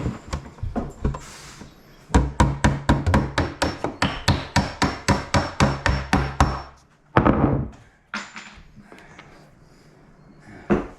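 Hammer striking in a fast, even run of about five blows a second for roughly five seconds, followed by a single louder knock.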